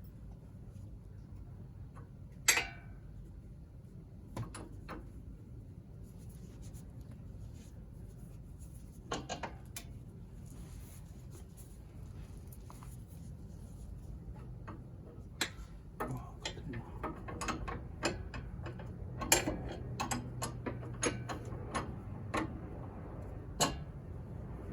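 Scattered metallic clicks and knocks of hand tools on car suspension parts, one sharp knock a couple of seconds in and frequent clicking in the second half, over a steady low hum.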